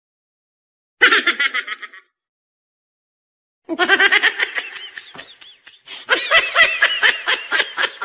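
Rapid, high-pitched giggling laughter: a short burst about a second in, then a longer run of laughter from about four seconds in.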